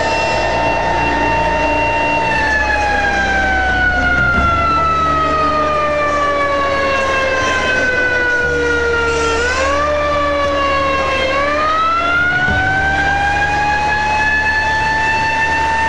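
Fire truck siren wailing: it holds a steady note, then its pitch falls slowly for several seconds, jumps up briefly, dips again and climbs back to the steady high note. A low, steady rumble runs underneath.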